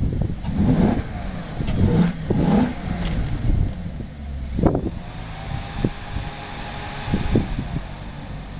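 Maserati GranCabrio's power fabric soft top in motion. A faint steady whine from the roof mechanism rises and fades over a couple of seconds in the middle, over a low rumble with irregular knocks.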